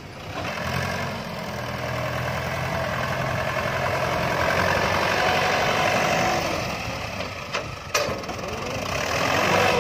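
Mahindra 575 DI tractor's four-cylinder diesel engine running steadily as the tractor drives over dry crop stalks spread out to be threshed under its wheels. Two short sharp clicks come near the end.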